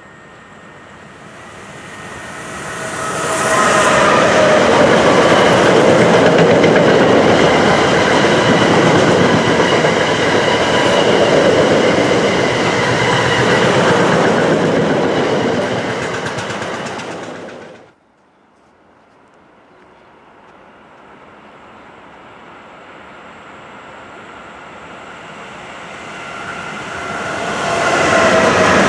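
A freight train of double-deck car-carrier wagons rolls past at speed, its wheels running loudly over the rails as it approaches and goes by. It cuts off abruptly about two thirds of the way in. A second freight train hauled by two DB electric locomotives then approaches and grows steadily louder until it is passing close near the end.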